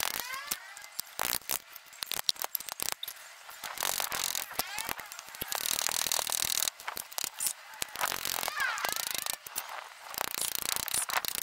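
Shards of broken glass clinking and tapping against each other and on a concrete wall top as they are handled and laid out: a quick, irregular series of sharp clicks.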